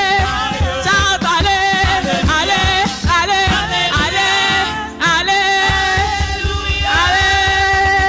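Gospel praise singing with band accompaniment in a church worship service, voices over a steady drum beat; from about five seconds in the voices hold long notes.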